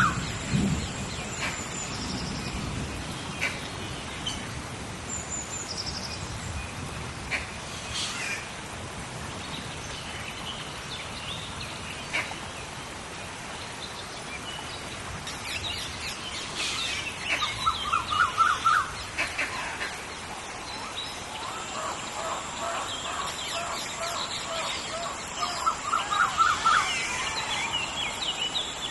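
Tropical rainforest ambience in rain: a steady hiss of rain with birds calling over it, including quick runs of rising notes, loudest about two-thirds of the way through and again near the end. A thin steady high tone joins partway through.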